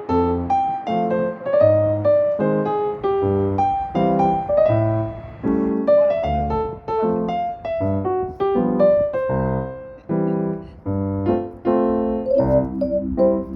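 Background music: a light piano tune with a bouncing bass line, notes struck in a steady rhythm.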